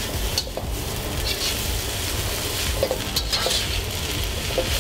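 Soaked rice noodles frying in a hot steel wok with a steady sizzle, a metal spatula scraping the pan now and then as they are stirred.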